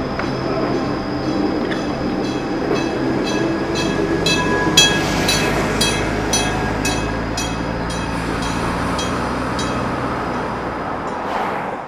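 Enoshima Electric Railway tram running past close by: a steady rumble and hum, with a sharp, regular clicking about twice a second through the middle. The sound fades out at the end.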